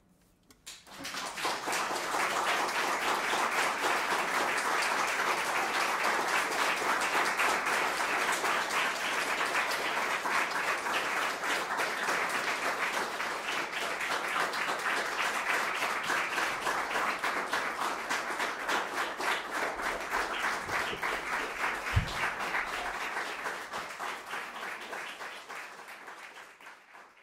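A small audience applauding with steady clapping that starts about a second in and tapers off near the end. A single low thump sounds near the end, above the clapping.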